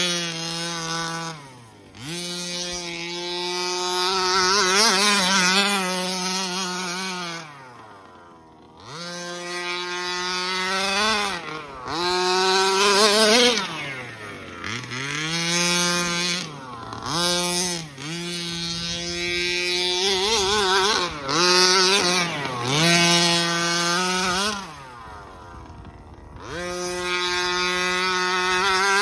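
Rovan Baja RC buggy's 36cc two-stroke petrol engine at full throttle, its high-pitched whine rising and falling as the throttle opens and closes around the laps, about a dozen times. It drops to a quieter low rev for a couple of seconds about three-quarters through, then winds back up.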